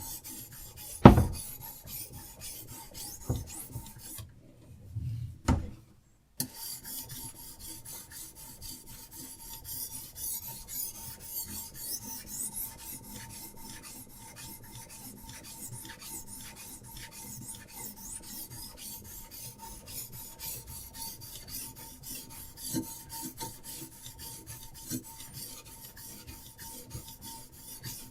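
Diamond sharpening stone on a guided knife sharpener scraping along a knife's edge in rapid repeated strokes. There is a sharp knock about a second in and a short break a few seconds later before the stroking resumes.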